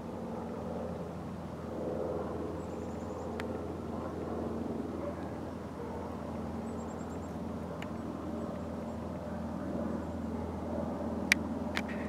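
Steady low hum of a vehicle engine, growing a little louder about two seconds in, with a few faint clicks and one sharp click near the end.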